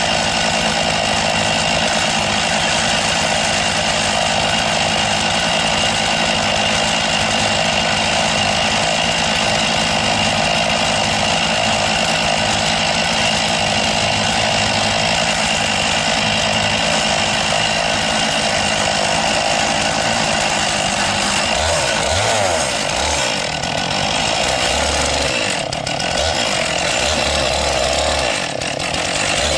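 Chainsaw on an Alaskan chainsaw mill running at full throttle, ripping lengthwise through a cedar log. About twenty seconds in, the sound starts to waver and dips in loudness a few times.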